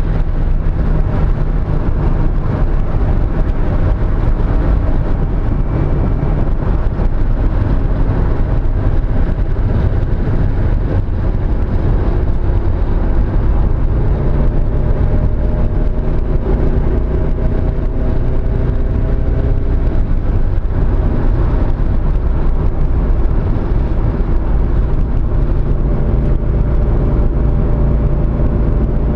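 Mazda Miata's inline-four engine running hard at speed, its pitch rising slowly in stretches, over heavy low wind and road rumble. The engine has a misfire on cylinder 2.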